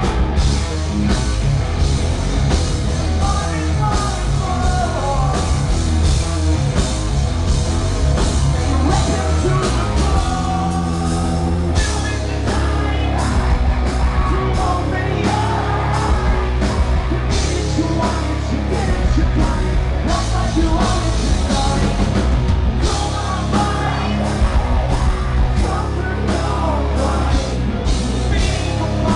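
Live rock band playing loud, recorded close to the stage: distorted electric guitars, bass and pounding drums under a singer belting and yelling into the microphone. About ten seconds in the drums drop out briefly over a held chord, then the full band comes back in heavier.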